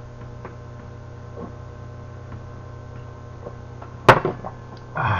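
A drinking glass set down on a table with one sharp knock about four seconds in, over a steady low electrical hum, followed shortly by a short breathy sound.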